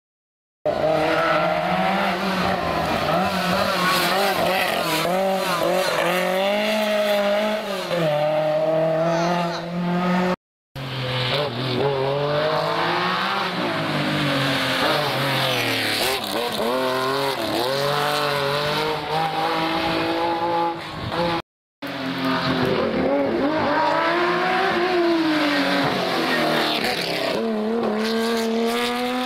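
Historic rally cars driven hard on a special stage, their engines revving up and falling back through the gears. The sound breaks off twice, about ten and twenty-one seconds in, where separate cars are cut together.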